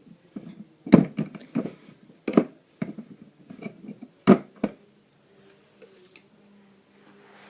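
Small plastic toys being handled on a hard surface: a run of sharp clacks and taps, loudest in the first half, then quieter.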